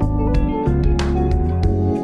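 Background music with plucked guitar notes over a sustained bass.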